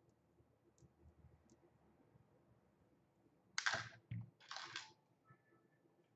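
Mostly near silence, then a few short clattering, rustling handling sounds about three and a half seconds in as makeup brushes and products are picked up and set down on the table.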